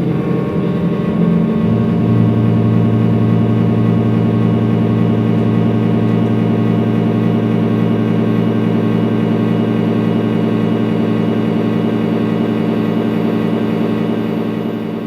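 Live electronic drone from a noise-music set: a loud, steady hum of stacked sustained tones. A deeper note comes in about a second in and holds, then the whole drone eases down slightly near the end.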